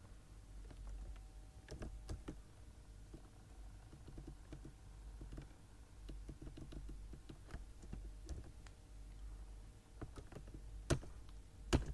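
Sparse, irregular keystrokes on a computer keyboard, with a couple of louder clicks near the end, over a faint low hum.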